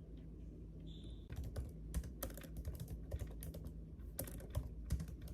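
Typing on a computer keyboard: quick, irregular key clicks begin about a second in, after a brief high beep, over a low steady hum.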